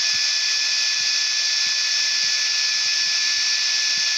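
DC fan on the L-Cheapo Mk7 laser diode engraver's head running steadily while it engraves glass: a loud, airy hiss with a few steady whining tones. The fan cools the head and also blows air assist onto the cut.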